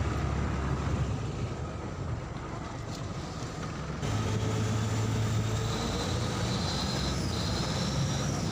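Steady low engine rumble of a motor vehicle or boat, with general background noise; the background changes abruptly about four seconds in.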